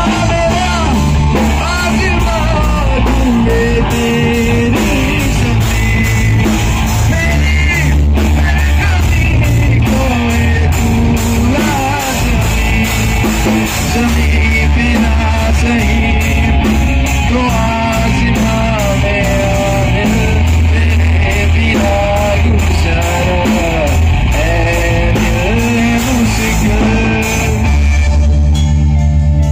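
Rock band playing live together: electric guitars, bass guitar, keyboard and drum kit.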